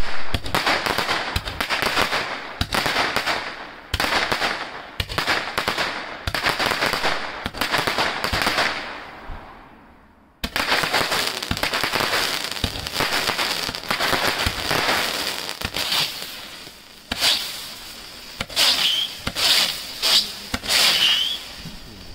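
Epic Fireworks Sky Lab 25-shot comet barrage cake firing: shots in quick succession, each followed by crackling from the comet tails. Near the end the shots come more spread out.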